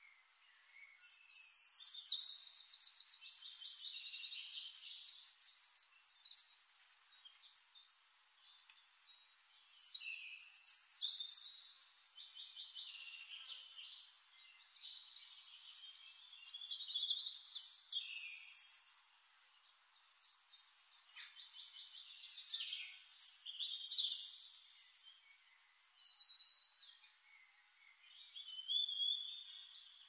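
A songbird singing: phrases of rapid high trills and chirps, each two to three seconds long, repeating about every six seconds.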